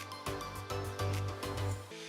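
Background music with a steady low bass line and a regular beat.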